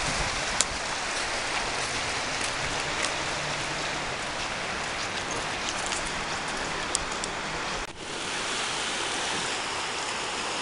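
Rain falling, a steady hiss with a few sharp drop-like ticks, briefly cut off about eight seconds in.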